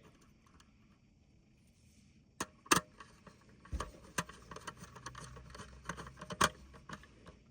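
Small clicks and taps of wires and small plastic and metal parts being worked by hand. After a silent start come two sharp clicks, then a dull thump and a run of light scattered clicks and rattles.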